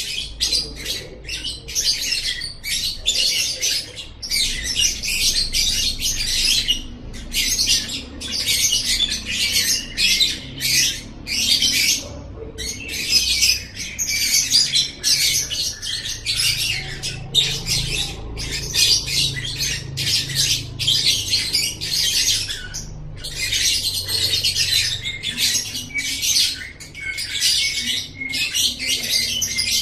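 Lovebird in full 'ngekek' song: a long, rapid, high-pitched chattering trill that runs on almost unbroken, with only a few brief breaks.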